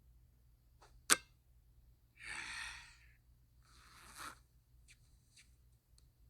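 A single sharp click about a second in, then two brief rustling swishes and a few faint light ticks near the end.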